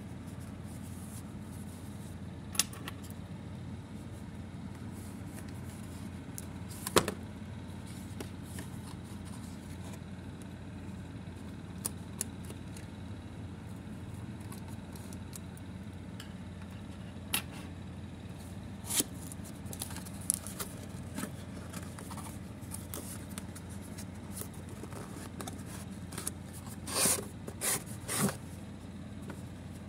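Cardboard toy box being opened by hand: sparse clicks and short scrapes of the flaps, tabs and inner tray, with a cluster of louder scrapes near the end, over a steady low hum.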